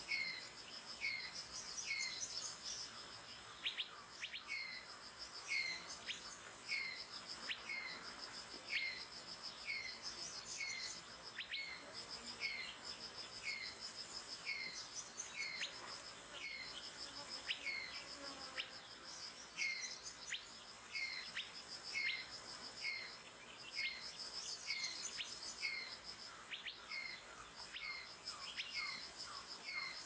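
Minivet call notes: a short downward-hooked whistle repeated steadily, about one every ¾ second. Under them runs a constant high-pitched insect trill.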